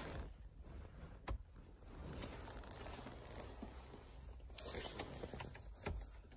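Faint rustling and handling noise inside a car cabin, with a sharp click about a second in and a few light clicks near the end.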